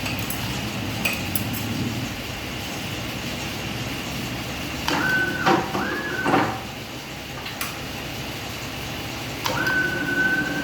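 CNC wire bending machine running with a steady mechanical hum. Twice, about halfway through and again near the end, its drive motors give a high whine that rises, holds steady for a moment and drops away, with knocks as the wire is fed and bent.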